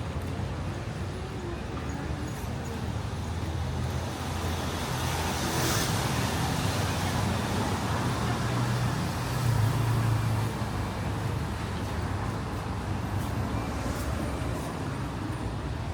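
City road traffic: vehicle engines running low and steady, with a brief hiss about six seconds in and an engine swelling louder around ten seconds in.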